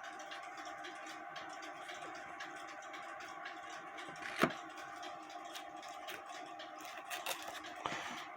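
Faint steady background hum with quiet handling sounds from work on a cuckoo clock bellows: one sharp click about halfway through and a few light clicks near the end.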